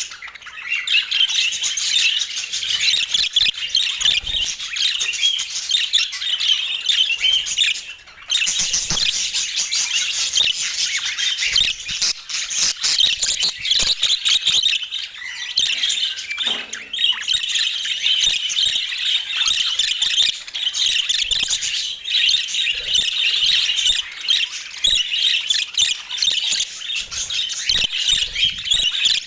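A flock of budgerigars chattering and warbling, a dense run of chirps and squawks that breaks off briefly about eight seconds in.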